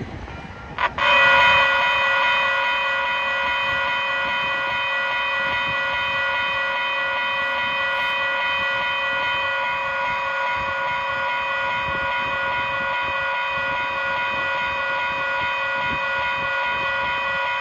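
Western-Cullen-Hayes Type 1 electronic railroad crossing bells start ringing suddenly about a second in, then ring steadily and evenly.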